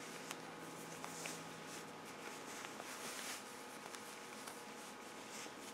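Faint, soft rustling and small ticks of a crocheted yarn piece being handled and turned inside out by hand, over quiet room tone.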